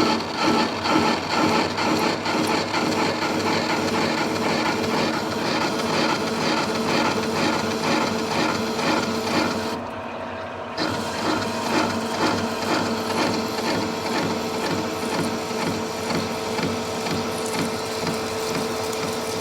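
Lathe turning tool, hand-fed, cutting the rough water-jet-cut edge of a pipe flange spinning in the chuck. The uneven edge makes an interrupted cut, heard as a steady rhythmic chatter over the hum of the running lathe. The cut eases off briefly about ten seconds in.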